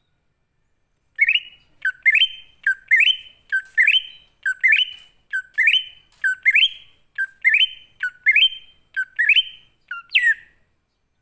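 Cucak ijo (green leafbird) singing in the wild 'ngalas' style: about a dozen loud, evenly repeated notes, each dipping and then sweeping upward, roughly one every three-quarters of a second, starting about a second in. The last note slides downward instead.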